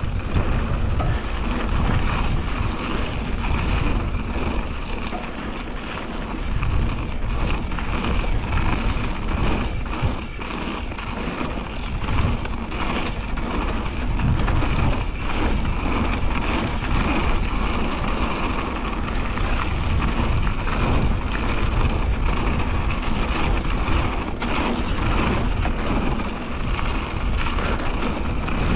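Mountain bike riding fast down a dirt flow trail: tyres rolling over the ground and wind buffeting the helmet-camera microphone, with frequent clicks and knocks from the bike over bumps and the rear hub's freewheel buzzing while coasting.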